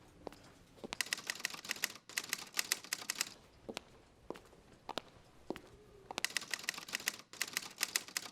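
Typewriter keys being struck: two runs of rapid keystrokes, each about two seconds long, with a few single strokes between them.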